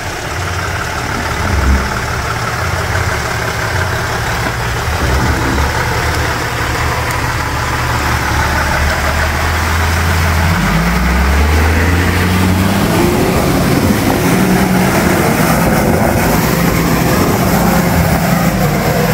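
Toyota Land Cruiser engine running under load as the 4x4 crawls through deep mud, its note climbing about ten seconds in and staying higher toward the end.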